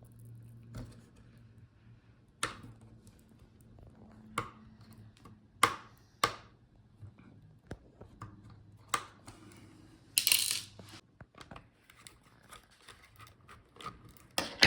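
Scattered sharp clicks and taps of a screwdriver and small screws on metal as a laptop's heatsink screws are taken out, with a brief rasping scrape about ten seconds in.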